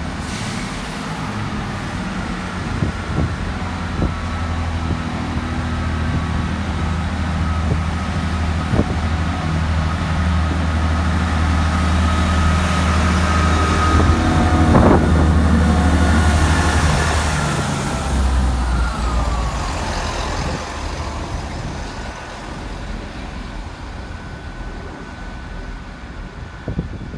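Diesel passenger train running past the platform: a steady low engine drone with a whine above it. It grows to its loudest about halfway through, as the First Great Western HST (InterCity 125) coaches pass, with a sharp knock at that point, then fades as a falling whine dies away.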